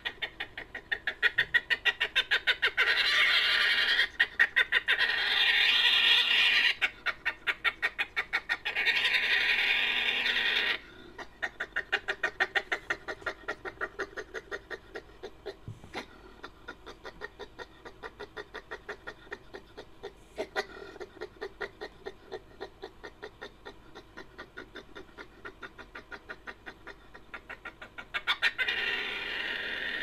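Made-up creature sound effect built from badger recordings: long runs of rapid chattering, clucking pulses. The run is loud for about the first ten seconds, softer through the middle, and swells again near the end.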